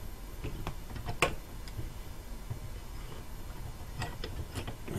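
A handful of light, irregular metallic clicks, the sharpest about a second in, as a valve spring compressor is slowly backed off with a wrench and the spring retainer settles over the valve keepers on the BMW 323i's cylinder head.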